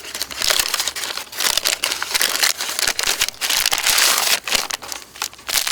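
Dense, irregular crackling and crinkling: a campfire crackling close by.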